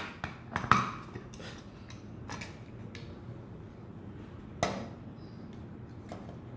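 Sharp clicks and knocks of the hard plastic parts of a scanner's gooseneck stand being handled and screwed together, the holder cup twisted onto the end of the ribbed gooseneck arm. There are a few scattered taps, the loudest under a second in and another about four and a half seconds in.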